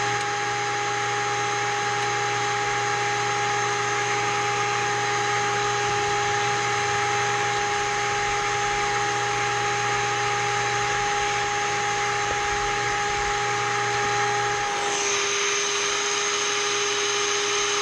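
Seamer Down Now 200 Series carpet seaming tool running with a steady motor whine. About fifteen seconds in, the pitch shifts as the unit is lifted and moved.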